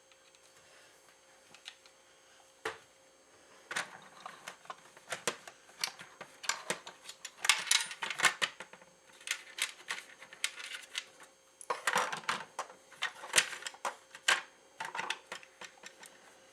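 Hard plastic parts of a disassembled Nerf Rival Apollo blaster clicking and clacking as they are handled and fitted back together. The clicks come in irregular clusters from about four seconds in.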